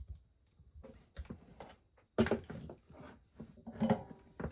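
Handling noise on a workbench: irregular knocks and rustles as small parts and tools are picked up and set down, with sharper knocks about two seconds in and again near the end.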